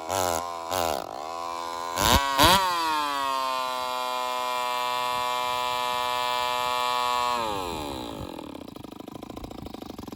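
Joncutter 5800 two-stroke chainsaw running on alcohol fuel with a shortened pipe: a few quick throttle blips, then revved hard to a steady high pitch that, after about five seconds, sags and winds down near the end. The men suspect the fuel line and fuel filter cannot draw alcohol fast enough at full throttle.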